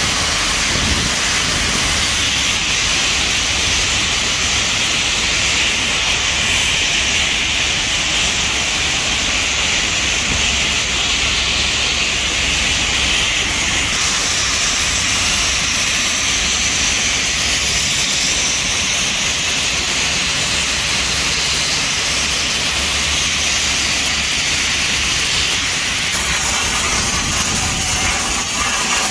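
Steady, loud hiss of high-pressure spray equipment working on a ship's steel hull, over a low, constant machinery rumble.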